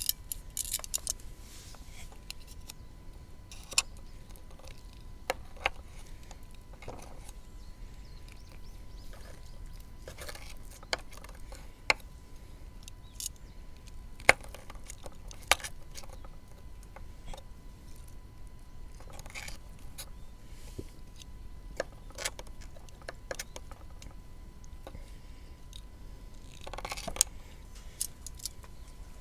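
Scattered light clicks, clinks and brief rustles of small hard objects being handled, over a low steady background.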